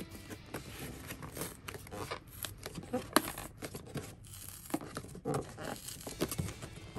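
Packaging being handled and torn open: irregular tearing and crinkling rustles with small clicks.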